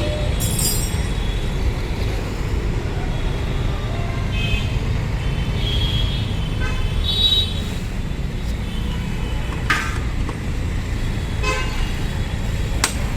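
Busy city street traffic: a steady rumble of engines with several short vehicle horn toots, and a few sharp knocks in the second half.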